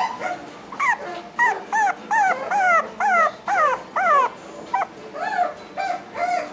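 A puppy whining in a quick series of high cries that each fall in pitch, about two a second, followed by a few shorter, softer cries near the end.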